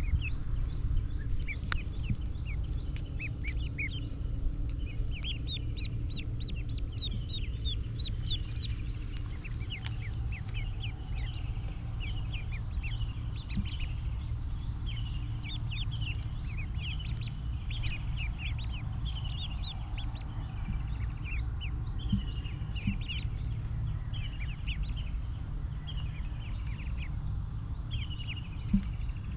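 A group of domestic ducklings peeping constantly, with many short, high calls overlapping one another, over a steady low rumble.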